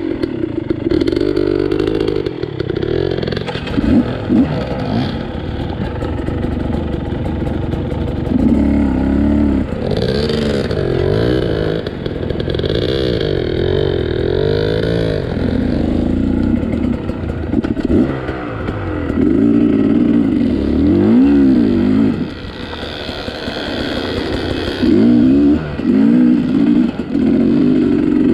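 Two-stroke dirt bike engine on the throttle, its pitch rising and falling over and over as the rider works it up and down over rocky trail.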